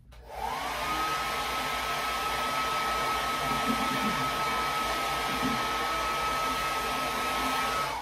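Handheld electric dryer blowing on wet acrylic paint to dry it: a rush of air with a motor whine that rises as it spins up after being switched on, then holds a steady pitch until it cuts off just before the end.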